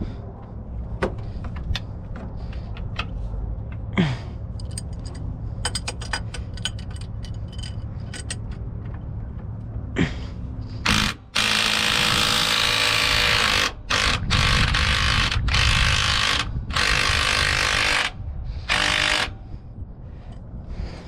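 Hand tools clicking and tapping on metal fasteners, then a power tool running loud in several bursts of one to three seconds near the end, undoing fasteners while the truck's batteries and alternator are being removed.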